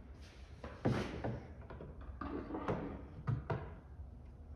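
A few wooden knocks and short scraping strokes as a wooden keel strip is handled and worked by hand on the dinghy's hull. There are four or five separate strokes, the loudest about a second in.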